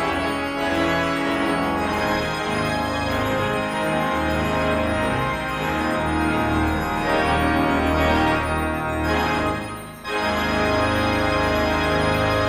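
Organ playing sustained chords, with a brief break about ten seconds in before a final held chord.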